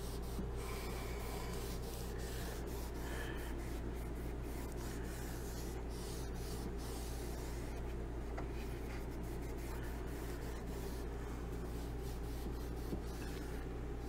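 Stain-soaked cloth rubbed back and forth along wooden cabinet trim, a faint rubbing, over a steady low hum.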